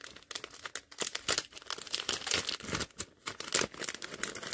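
Thin clear plastic packaging bag crinkling and crackling as a small doll dress is handled and pulled out of it, in quick irregular crackles.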